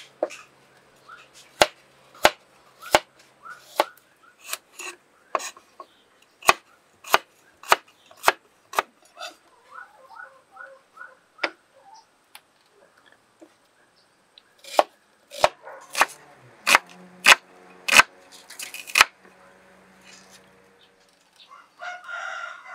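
Broad kitchen knife chopping turmeric and ginger root on a wooden cutting board: irregular sharp knocks of the blade on the board, with a short pause midway and a quicker run of strokes later. A rooster starts crowing near the end.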